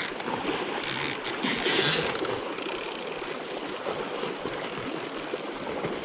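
Shallow creek water rushing over a riffle below a fallen log, a steady noise with a brief louder swell about two seconds in.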